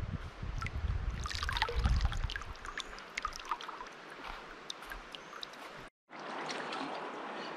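River water trickling and splashing, with many short sharp drips and wind rumbling on the microphone in the first few seconds. After a cut about six seconds in, a steady flowing hiss of river water.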